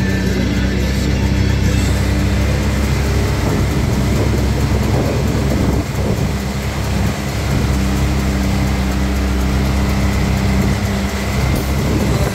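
Side-by-side UTV engine running at a steady speed while the machine drives through shallow muddy water, with a continuous rushing noise of water and mud churned up by the tyres.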